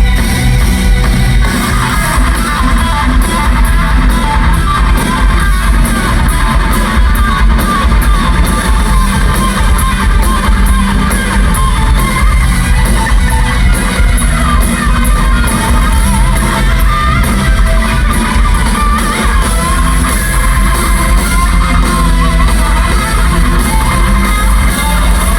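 Loud live rock music: electric guitars over bass and drums, with a wavering lead line coming in about a second and a half in.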